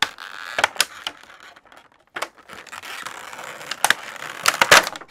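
Clear plastic packaging bag crinkling and rustling as it is worked off a piggy bank, with sharp crackles here and there and a loud burst of them near the end.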